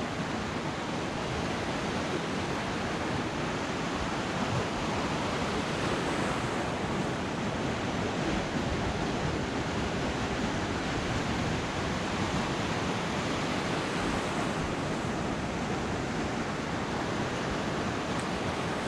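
Ocean surf breaking and washing up a sandy beach, a steady rush of wave noise.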